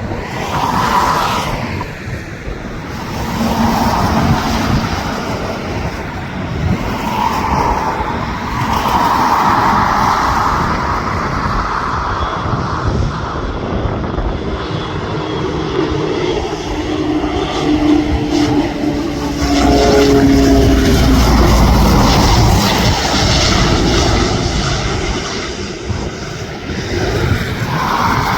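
A landing airliner's engines passing close by, loudest about two-thirds of the way through, with steady tones that glide down in pitch as it goes past. Wind gusts on the microphone.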